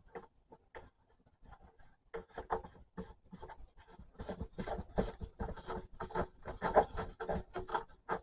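Plastic parts being handled and worked together, a string of short scrapes and clicks that grows busier about two seconds in, as a fitting is pushed firmly onto a PVC tube.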